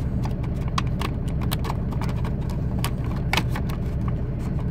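Scattered light clicks and taps of a paper tachograph disc being seated in the open drawer of an analogue tachograph, with a sharper click a little past three seconds in. Under it runs the steady low hum of the truck's idling engine.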